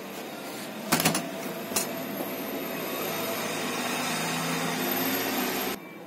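Steady machine noise that slowly grows louder, with two sharp knocks about a second in and again a little later; it cuts off suddenly near the end.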